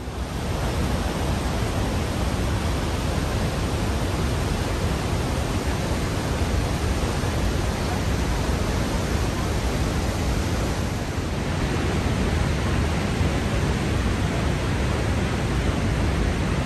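The Lower Falls of the Yellowstone River, heard from the brink: a steady, loud rush of plunging water with a deep rumble underneath.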